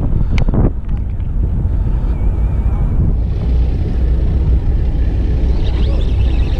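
Steady low rumble of a fishing boat's engine, mixed with wind on the microphone, with a few sharp clicks in the first second.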